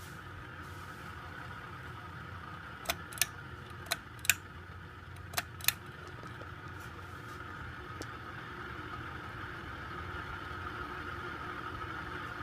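1988 Sears (Encon) 42-inch Spinner ceiling fan running at medium speed: a steady whir with rough noise from its worn bearings, which the owner calls terrible. Three pairs of sharp clicks sound about three to six seconds in.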